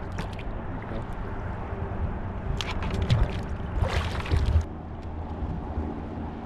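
Water sloshing and splashing around a kayak, over a steady low rumble of wind on the microphone, with a cluster of sharp splashes about halfway through.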